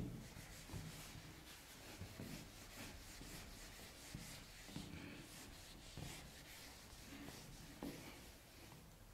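Whiteboard duster wiped across a whiteboard, erasing marker writing in faint, repeated rubbing strokes.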